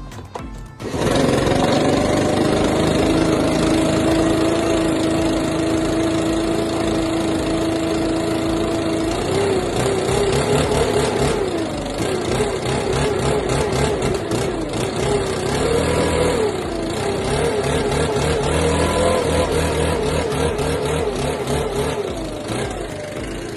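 Stihl BR 600 backpack blower's two-stroke engine running, starting abruptly about a second in. It holds a steady pitch at first, then revs up and down repeatedly and settles lower near the end. The blower is running again after a new air filter, fuel filter and spark plug.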